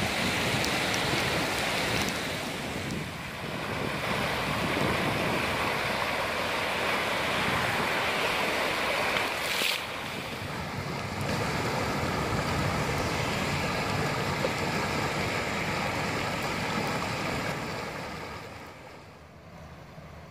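Steady rush of muddy floodwater pouring over a wadi bed after heavy rain, its level dropping near the end.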